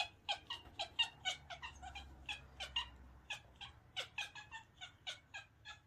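Kitten making a rapid string of short, high calls, about three or four a second.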